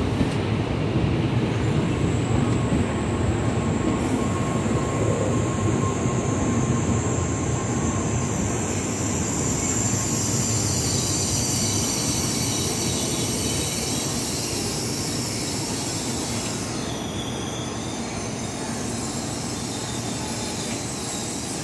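Tōkaidō Shinkansen train running on the rails: a steady rumble and hiss with a thin high whine that slowly drops in pitch over the first dozen seconds, easing off slightly toward the end.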